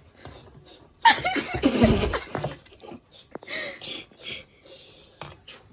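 A short non-speech sound from a person's voice about a second in, lasting under two seconds, among light rustling and handling noises.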